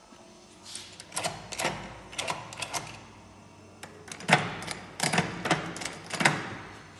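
A key is turned in the cylinder lock of a steel apartment entrance door, and the lock's bolts throw with a series of sharp metallic clicks and clacks. The clicks come in two bursts, the second louder.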